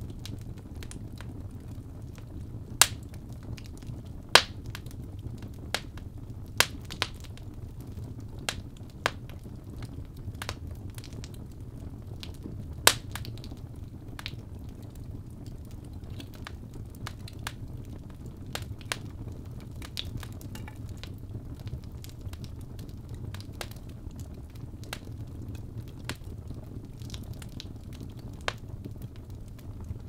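Wood fire crackling in a fireplace: irregular sharp pops and snaps of burning logs over a steady low rumble of the flames, the loudest pops about three, four and thirteen seconds in.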